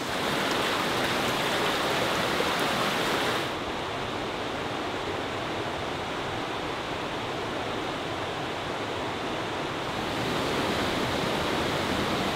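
Water rushing steadily down a watermill's concrete channel. The rush gets a little softer about three and a half seconds in and fuller again near the end.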